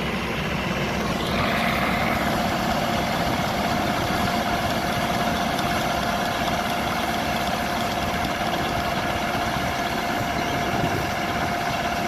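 Tractor engine running a grain auger, steady and unchanging, as a hopper-bottom grain trailer is emptied into the auger's intake hopper. A steady high hum joins about a second in.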